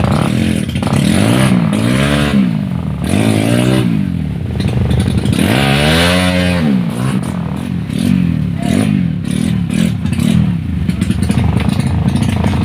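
Dirt bike engine revving up and down again and again, its pitch climbing and falling in a series of swells, the longest about six seconds in.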